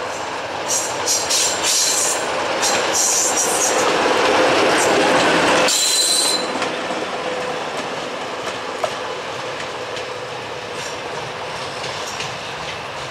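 LDH diesel-hydraulic shunting locomotive running light at low speed past the camera, engine running, its wheels squealing in short high-pitched bursts over the first few seconds. It is loudest as it goes by about five seconds in, drops off abruptly just before six seconds, then fades as it moves away.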